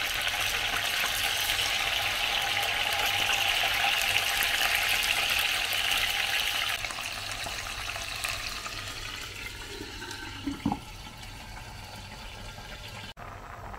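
Chicken pieces sizzling and crackling in hot oil in a frying pan, dropping to a softer sizzle after about seven seconds. A short clink about ten and a half seconds in as a glass lid goes onto the pan.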